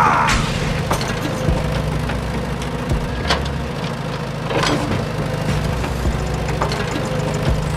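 An engine idling with a steady low hum, with a few sharp clicks or knocks scattered through it.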